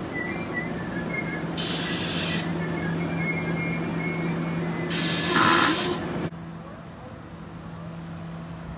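Two short, loud bursts of compressed air hissing from a standing NJ Transit commuter train's air system, the second one longer, over the train's steady low hum. About six seconds in the sound drops suddenly to a quieter hum.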